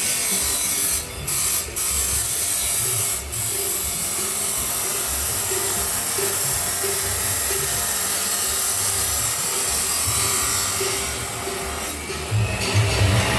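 Angle grinder cutting stainless steel pipe: a steady, loud, hissing grind. It breaks off briefly three times in the first few seconds, and a few low knocks come near the end.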